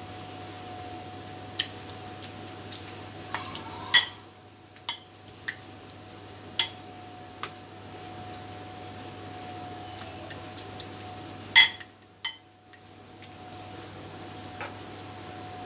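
Metal spoon clinking and scraping against a ceramic baking dish while spreading meat sauce, in sharp irregular taps, the loudest about twelve seconds in. A faint steady hum runs underneath.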